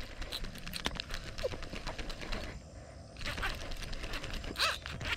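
Baitcasting reel clicking repeatedly as its handle is cranked to reel in a hooked bass.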